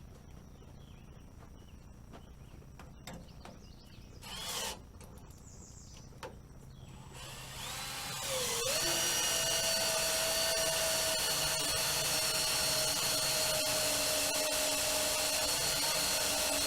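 Power drill starting up about eight seconds in; its pitch dips briefly, then it runs with a steady whine, turning in place of a hand crank. Before it, a few faint clicks and a short rustle.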